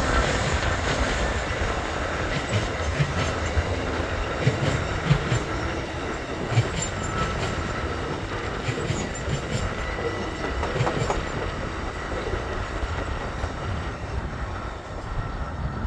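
Amtrak passenger train cars rolling past at speed: a steady rumble with irregular clacks of wheels over rail joints and a faint thin wheel squeal now and then, easing slightly toward the end.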